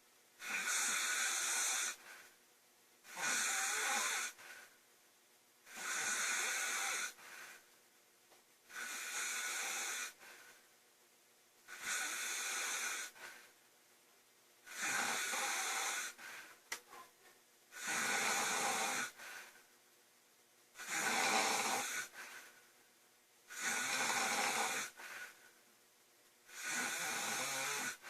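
A woman snoring loudly in a steady rhythm: about ten snores, one every three seconds or so. Each lasts about a second and is mostly a high, breathy hiss, with quiet between them.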